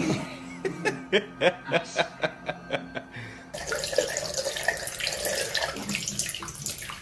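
A run of sharp rhythmic taps, about four a second. About halfway in it gives way to a bathroom tap running, its water splashing steadily into the sink.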